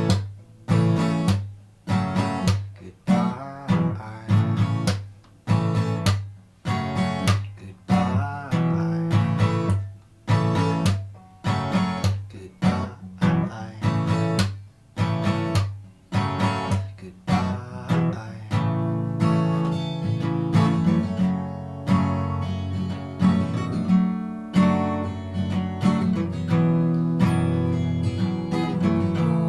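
Acoustic guitar strumming chords with no singing: sharp strokes that ring and fade, growing denser and more sustained about two-thirds of the way through.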